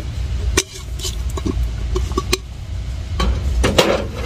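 Glass jar candles being handled: a few sharp clicks and small glassy clinks as the jar and its lid are set down and picked up, then a stretch of rustling near the end, over a low steady rumble.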